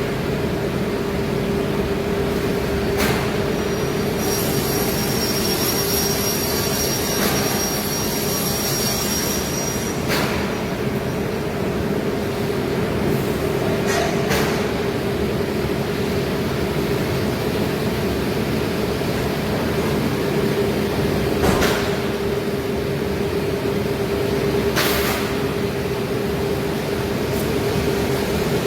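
CNC router cutting plywood: a steady machine noise with a constant hum. A high whine comes in a few seconds in and stops about ten seconds in, and there are a few sharp clicks.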